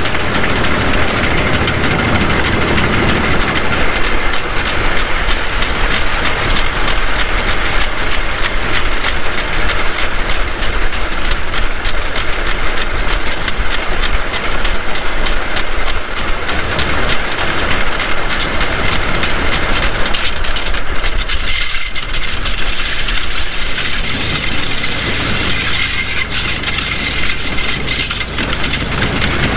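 Ford Model T four-cylinder engine running steadily as the railcar rolls along the rails, with its steel wheels clicking over the track.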